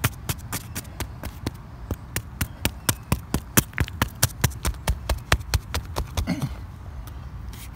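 Wooden stick striking rock again and again, rapid sharp knocks about six a second, as it chips and pries at a geode embedded in a creek bank. The knocking stops about six seconds in.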